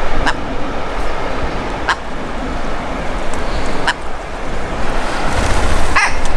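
Wind rumbling on the microphone as a steady noise, broken by a few short, sharp sounds spaced a second or two apart and a quick cluster of chirps near the end.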